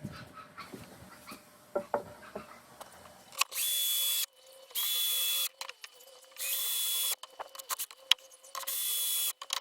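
Power drill running in four short bursts, each under a second long, with small knocks and clicks between them.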